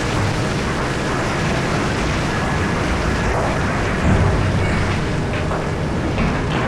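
Komatsu PC4000 mining excavator working broken blasted rock: a continuous heavy rumble of rock grinding and crashing over the running machine, with a louder crash about four seconds in.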